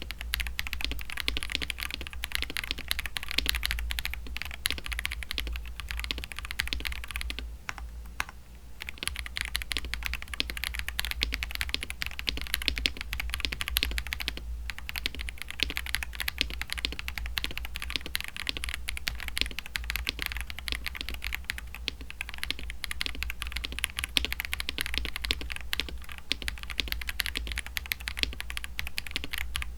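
Fast, continuous typing on a mechanical keyboard fitted with stock Akko CS switches, a rapid clatter of key presses with two short pauses, about a third of the way in and halfway through.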